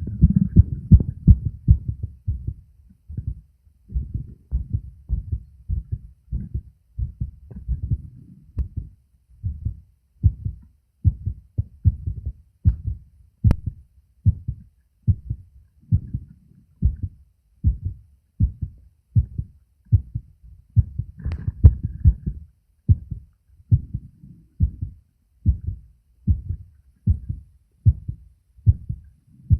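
A man's heartbeat recorded through a phone microphone pressed to his chest: a steady lub-dub at a little over one beat a second.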